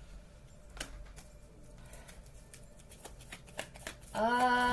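Tarot cards being handled, with scattered light clicks and flicks. About four seconds in, a person starts humming one long note that sinks slowly in pitch.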